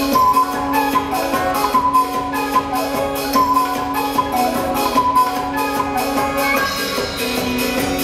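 Music with a quick, steady beat: a held low note runs under a melody of short notes.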